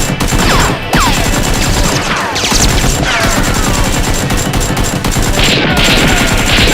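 Rapid bursts of gunfire sound effects over background music, with several falling whistling glides.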